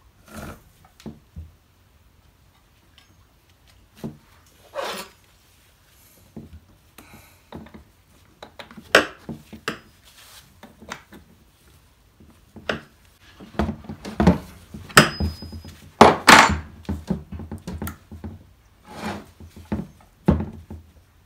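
Irregular knocks, clicks and short scraping rubs of hand work with tools and wood, with a busier cluster of knocks past the middle; no engine is running.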